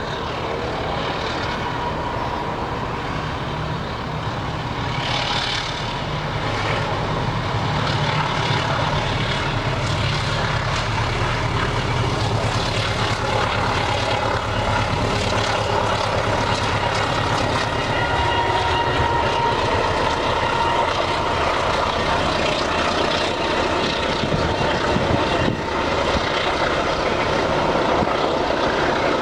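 Engine of a CC 201 (GE U18C) diesel-electric locomotive running under load with a steady, deep drone, growing louder about a quarter of the way in and holding there.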